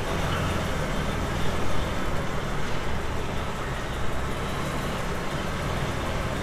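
Lorry's diesel engine running steadily at low revs as the truck creeps forward in a slow manoeuvre, heard from inside the cab.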